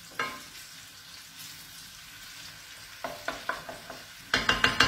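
Diced guanciale sizzling steadily in a frying pan as its fat renders, stirred with a wooden spoon. A few sharp knocks about three seconds in, then a quick run of louder scrapes and knocks of the spoon against the pan near the end.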